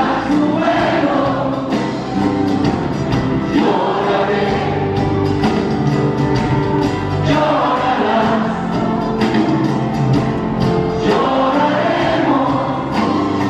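Live band playing a folk-rock song with acoustic guitar, electric bass and drum kit, with several voices singing together.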